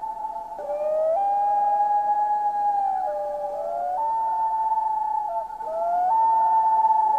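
Common loons wailing: long held notes that step up and down with short glides, two or more birds overlapping.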